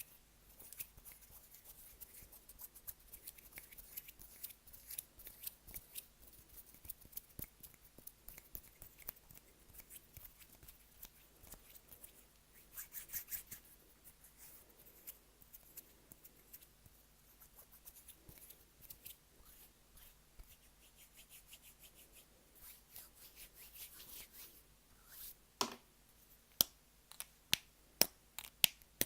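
Close-miked ASMR trigger sounds: a run of quick, light clicks and snips, turning near the end into louder, separate sharp clicks about two a second.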